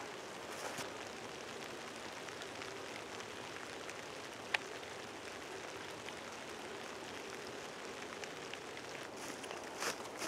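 Faint steady outdoor hiss, broken by a sharp knock at the very start and a shorter sharp knock about four and a half seconds in: the Kizlyar Kalibr dagger thrown and striking a tree trunk. Near the end there is a brief, softer sound as the blade is worked out of the wood.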